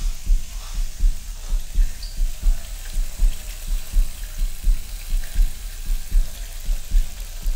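Heartbeat sound effect: a deep double thump, lub-dub, repeating regularly about every 0.7 seconds over a faint hiss.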